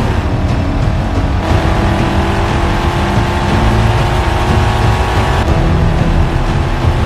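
Car engine running steadily with a low rumble, the sound of the Dodge Challenger SRT Hellcat, under orchestral film music.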